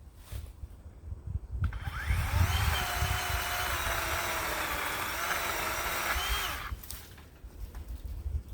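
Worx 40V 14-inch cordless electric chainsaw spinning up with a rising whine about two seconds in, running steadily for about five seconds, then stopping abruptly when the trigger is released.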